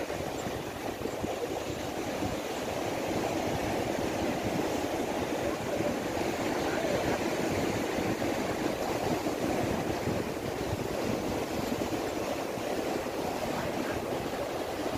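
Sea surf washing against shoreline rocks: a steady rushing wash of water with no let-up.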